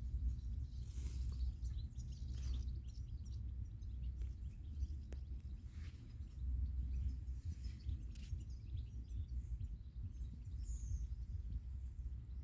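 Outdoor background noise: a steady low rumble that swells and fades, with a few faint, short bird chirps and brief soft hisses.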